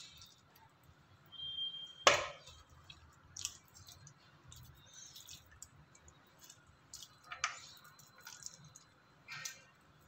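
Soft wet squelches of ripe mango pulp being squeezed off the seeds by hand in a steel bowl, coming in scattered short bursts, with one sharp knock about two seconds in.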